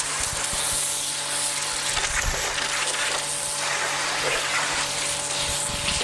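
Portable electric pressure washer spraying a jet of water onto a car's body: a steady hissing spray, with the washer's motor humming underneath.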